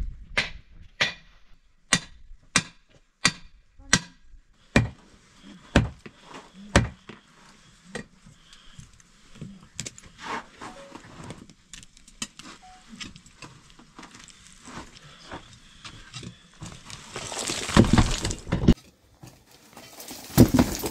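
A hand tool striking rock in a steady series of sharp blows, about three every two seconds at first and then about one a second. Lighter chipping and scraping follow, and near the end comes a louder stretch of rock breaking and crumbling, with a few more hard hits.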